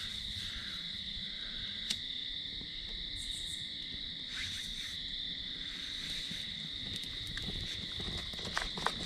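Steady high-pitched chorus of night insects trilling without a break, with a sharp click about two seconds in and a few small clicks and crackles near the end as the pine needles catch fire.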